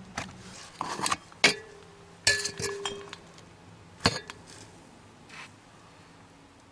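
Loose metal hardware clinking and rattling as a bolt is fetched: a handful of sharp clinks over about four seconds, one of them ringing briefly, then it goes quiet.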